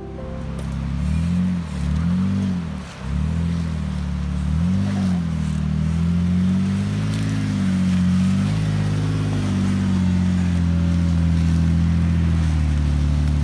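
Four-door Jeep Wrangler's engine running under load as it crawls over a steep leaf-covered dirt trail, the revs rising and falling several times in the first few seconds, then held steadier.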